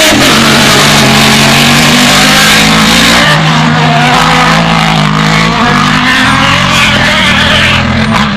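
Autocross race cars' engines running very loud, held at fairly steady revs that shift up and down in steps, under a rough haze of noise.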